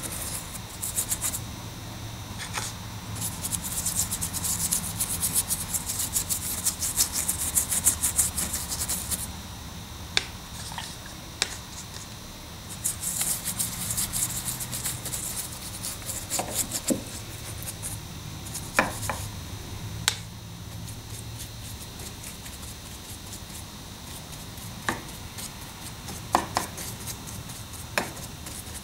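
Stiff paintbrush scrubbing and dabbing a wet, watered-down paint wash into rough plaster rock castings: two spells of rapid scratchy strokes, a few seconds each, then several separate sharp taps.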